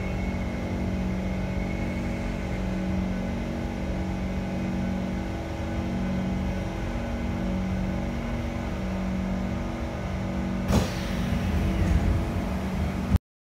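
Steady electrical hum and a slowly pulsing low drone from a Kawasaki C151 electric multiple unit standing at the station. About ten and a half seconds in there is a sharp clunk, followed by a rush of hissing noise as the passenger doors open. The sound cuts off suddenly just before the end.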